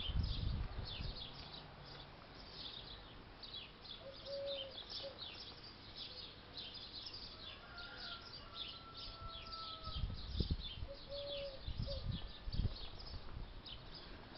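Small birds chirping and twittering continuously in the background, with a few low rumbles on the microphone about two-thirds of the way through.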